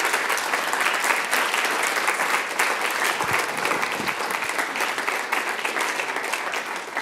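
Audience applauding steadily, a dense spatter of many hands clapping at once, the response to the end of a lecture.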